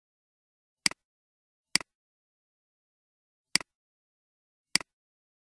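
Four sharp computer-mouse clicks at uneven intervals, each a press followed closely by a softer release, with dead silence between them: the mouse button toggling a map layer's checkbox on and off.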